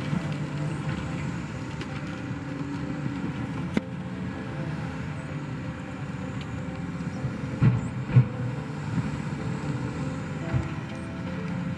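John Deere crawler dozer's diesel engine running steadily as the machine works through the logging slash, with a few sharp knocks and clanks, two louder ones close together about two-thirds of the way through.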